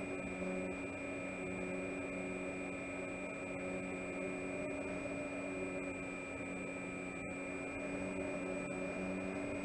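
Electric motor and propeller of an RC scale Cub, heard through the onboard microphone. It runs at a steady cruise with a constant whine and a lower hum that swells and fades about once a second.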